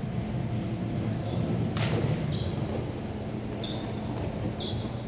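Roller hockey play in a large hall: one sharp knock about two seconds in, then three short high squeaks, over a steady low hum.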